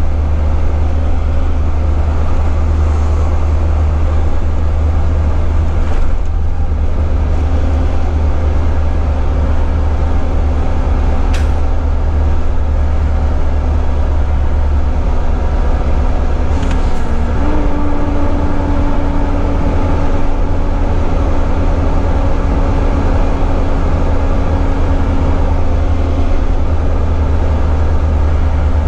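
Volvo FH12 480 truck's 12-litre straight-six diesel engine pulling at road speed, heard inside the cab as a loud, steady low drone with tyre and road noise. A little past halfway the engine tone dips briefly and then settles slightly higher.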